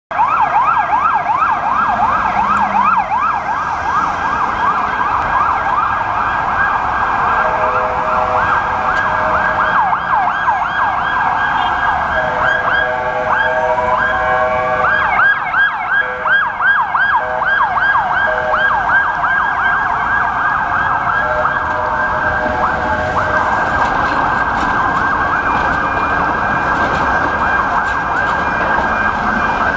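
Emergency vehicle sirens sounding over city traffic: fast repeating yelping sweeps, with slower rising-and-falling wails overlapping at times.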